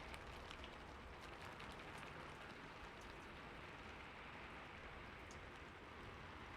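Steady rain falling, a faint even hiss with scattered sharper drop ticks, most of them in the first couple of seconds.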